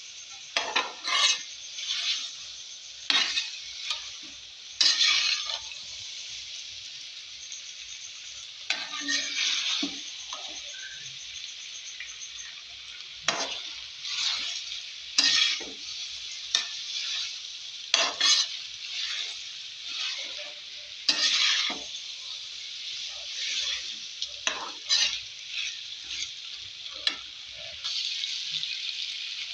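Boiled fusilli pasta and masala frying in a metal kadhai: a steady sizzle, with scrapes and knocks of a metal spatula against the pan at irregular intervals as it is stirred.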